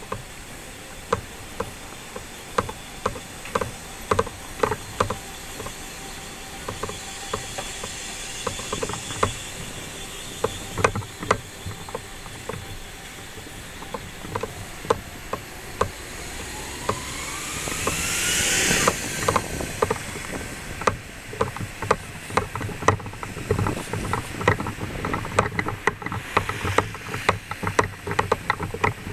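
Footsteps at walking pace, sharp taps about twice a second. About two-thirds of the way through, a passing vehicle grows louder with a rising whine, peaks, then fades quickly.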